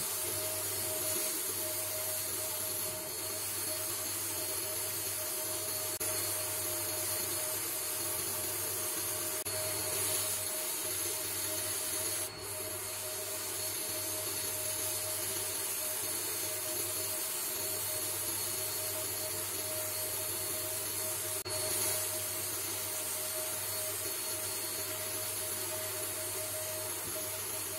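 Sandblaster gun blasting abrasive grit at a wooden saw handle: a steady hiss of compressed air and grit with a steady hum beneath, dropping briefly twice.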